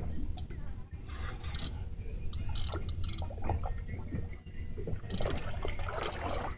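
Sea water sloshing and lapping against a small boat's hull in irregular splashes, over a steady low rumble, with scattered small clicks and knocks.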